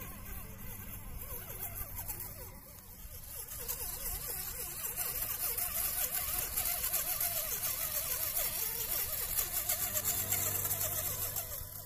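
Electric motor and gearbox of an MN-D90 1:12 RC crawler, a 390 brushed motor driving a Pangolin gearbox, whirring as the truck crawls over dirt; its pitch wavers and it grows louder from about four seconds in.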